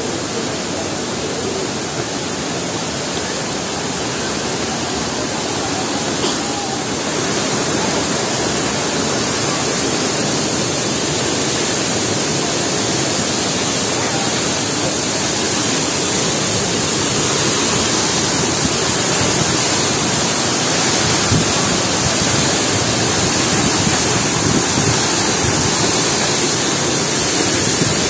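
Waterfall heard close up: water pouring down from above and crashing below, a steady rushing noise that grows a little louder about seven seconds in.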